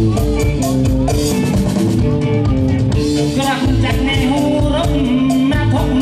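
A man singing into a handheld microphone over amplified music with a steady drum beat.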